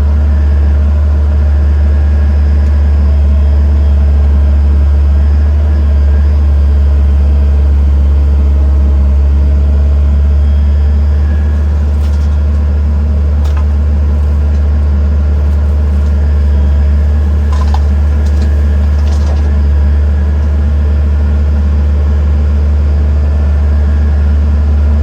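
A diesel engine of heavy machinery running steadily, a deep continuous drone, with a few short knocks partway through and again a little later.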